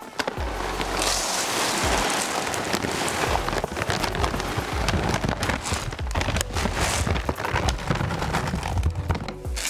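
Dry horse supplement feed poured from a 10 kg paper refill sack into a plastic bucket: a continuous rattling rush like rain, beginning about a second in.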